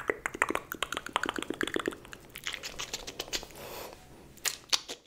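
Close-miked ASMR mouth sounds: rapid, irregular wet clicks and pops, with a brief hiss a little before four seconds in.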